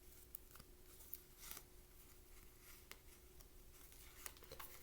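Near silence, with a few faint scattered clicks and rustles of tarot cards being handled over a faint steady hum.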